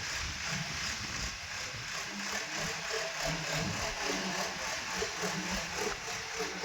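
Engine of heavy earth-moving machinery running steadily.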